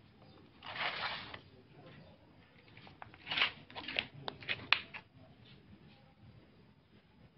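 Leaves and twigs brushing against a handheld phone: a soft rustle about a second in, then a cluster of sharp ticks and crackles in the middle.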